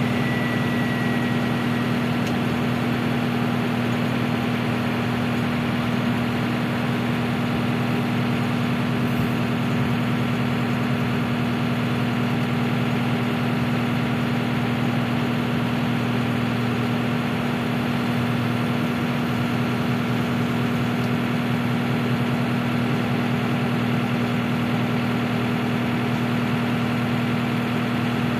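Steady diesel engine hum from a SANY crawler excavator loading a dump truck, with the truck's engine running as it stands. The pitch holds even, with no rise or fall.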